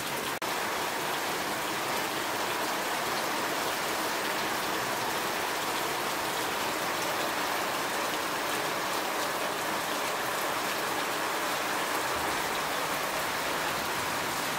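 Heavy rain falling steadily, splashing on wet ground and into water-filled metal basins, with a momentary break about half a second in.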